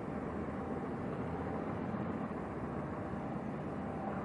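Steady low engine rumble with no distinct events, faintly tonal in the middle.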